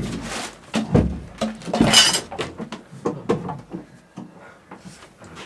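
A series of knocks and clunks, loudest about one and two seconds in, then fainter, lighter taps.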